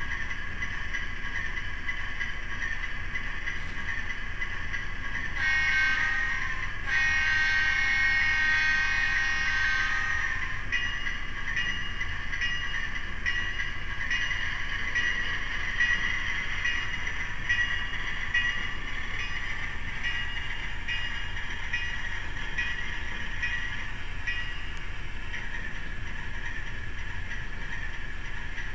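MRC 1820 DCC sound decoder in an HO-scale Athearn PRR RS-3 model diesel, playing through the model's small speaker. A steady diesel engine hum runs under a short horn blast about five seconds in and a longer one lasting about three seconds. After that a bell rings steadily while the engine sound rises a little and the locomotive pulls away.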